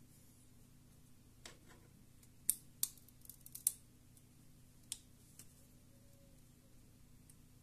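Sharp little clicks and snaps of a thin opening tool prying at the glued plastic casing of a Bluetooth headset earpiece: a quick cluster of clicks about two to four seconds in, then a few fainter ones.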